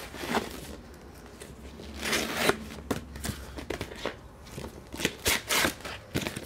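Paper mail packaging rustling and crinkling as it is handled and opened, in uneven bursts, loudest about two seconds in and again around five seconds.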